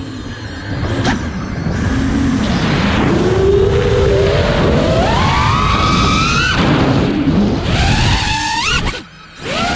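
Five-inch FPV quadcopter's brushless motors (T-Motor F80 Pro 2200kv on 6S) spinning HQ 5x4.3x3 V2S props, heard from on board with a rush of wind. The motor whine rises steeply in pitch as the throttle is punched, falls back, then rises again. Near the end it cuts almost to nothing for about half a second before coming back.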